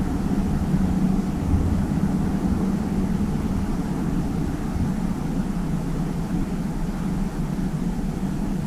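Steady low rumble with a faint hiss over it and no distinct sounds standing out.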